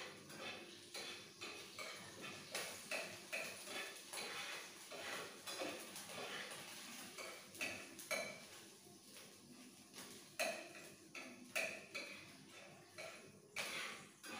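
Metal utensil stirring and scraping in a kadai, with irregular clinks and knocks, about one or two a second.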